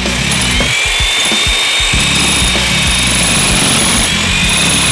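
Electric power tool running at high speed: its motor whine rises as it spins up and then holds steady, with a loud hissing noise, over background music.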